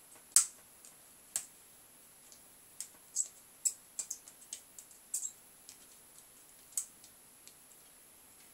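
Irregular small clicks and ticks, a few of them sharper and louder, as a soldering iron works on the solder joints of a CRT TV flyback transformer's pins on the circuit board.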